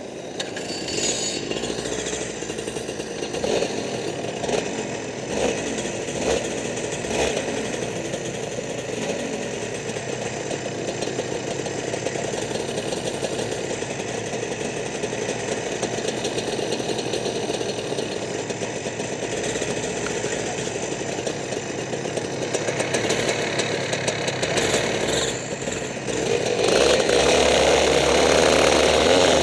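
Rotax two-stroke kart engines running at low revs with a steady buzz. About 27 seconds in they rev up and become much louder as the karts pull away.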